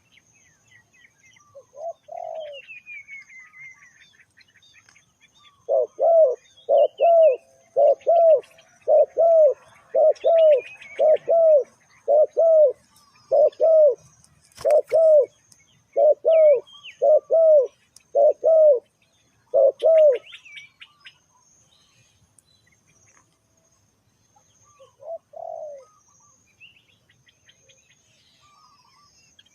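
Spotted dove cooing: a single coo, then a run of about sixteen coos at roughly one a second, then one more coo near the end. Small birds chirp faintly in the background.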